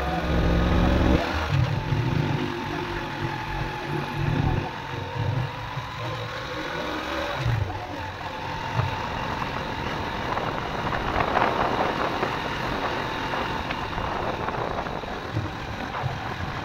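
Small motorcycle engine running as the bike rides over a rough gravel road, with an uneven low rumble from the ride.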